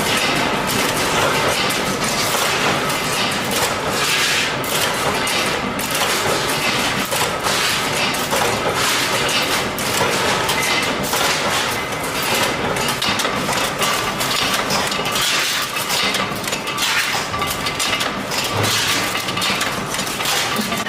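Workshop metalwork clatter: rapid, irregular knocks and clinks of metal on metal, as of hammering and metal parts being handled.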